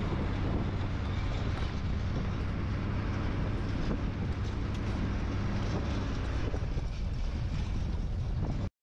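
Duramax diesel pickup driving along a dirt road, heard from a camera on its hood: a steady low rumble of engine and tyres, with wind buffeting the microphone.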